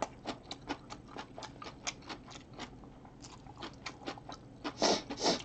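A man chewing a full mouthful of rice and kimchi close to the microphone: wet, smacking mouth clicks a few times a second, with two louder, breathy mouth sounds near the end.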